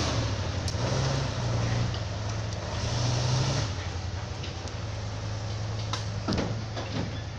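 Heavy log truck's engine pulling, its pitch shifting a little in the first few seconds, then growing fainter as the loaded truck moves away. A few short squeaks near the end.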